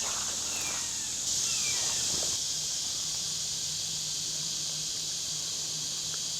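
Steady high-pitched insect chorus, swelling a little about a second in and settling back after about two seconds, with a few faint short descending chirps early on.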